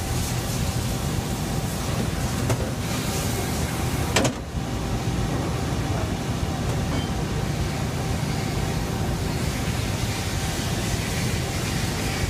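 Okuma LB-300M CNC lathe running with a steady low machine hum and a thin steady whine over it. A single sharp click comes about four seconds in.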